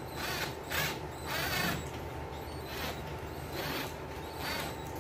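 Cordless drill-driver driving a screw in several short bursts, one of them longer with a fast rattling run.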